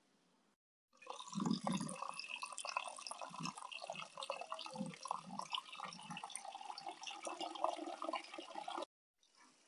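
Water running and splashing, as when something is rinsed under a tap, with many small clicks and a few low knocks.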